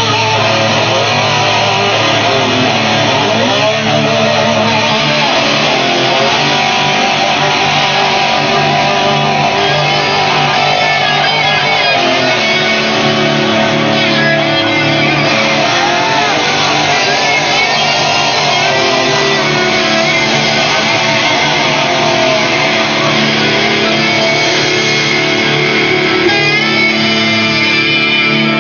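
Live rock band playing: loud electric guitars with sustained, bent notes over bass guitar.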